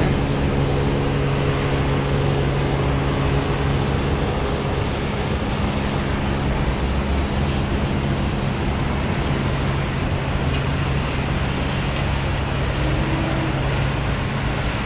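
Light propeller aircraft flying overhead: a steady engine drone made of several low humming tones, over a constant high-pitched hiss.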